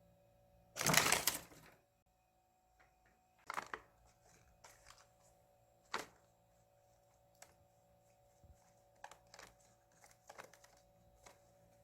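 Pet chipmunk at its snacks: one louder rustling burst about a second in, then scattered small clicks and crinkles of gnawing and handling food.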